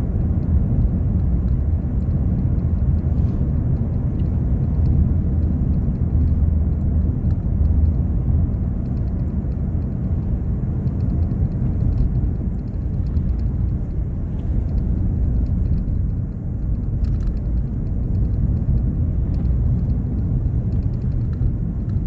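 Steady low rumble of road and engine noise inside a Mk7 Ford Fiesta's cabin while driving.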